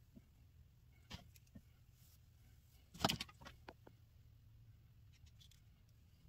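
A few sharp clicks and knocks from a flat iron being handled and clamped on hair, the loudest cluster about three seconds in, over a low steady hum.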